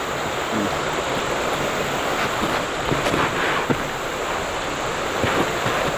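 Steady rushing of a creek, an even hiss of running water, with one faint knock about three and a half seconds in.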